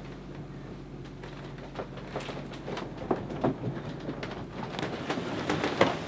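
Steady low rumble of a sailboat under way at sea, with irregular knocks and clicks that grow more frequent partway through; the sharpest knock comes near the end.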